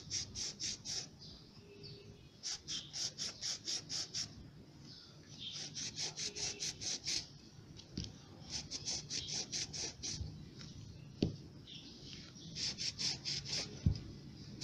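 Cloth towel rubbed quickly back and forth over rusty, vinegar-soaked pliers, wiping off the loosened rust, in five bursts of quick strokes about six a second. Two sharp knocks come in the second half.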